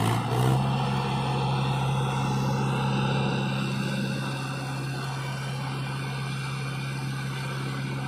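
Mahindra tractor's diesel engine running, revved up about half a second in and then held at a steady speed while it works the hydraulics tipping a loaded trailer of soil.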